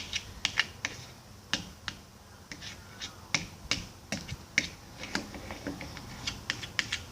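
Irregular sharp clicks and taps of small hard objects being handled, about twenty of them spread unevenly.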